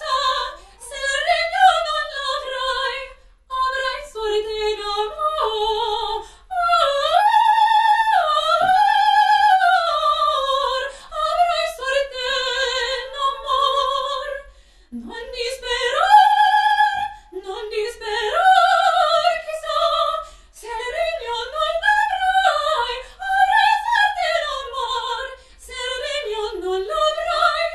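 A woman singing opera in a high voice with wide vibrato, in phrases a few seconds long separated by short breaths.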